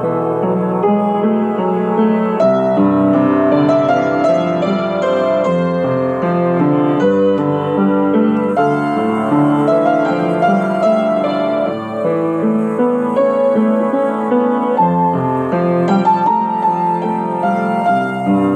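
Upright piano being played: a melody over sustained, overlapping chords, with no pause.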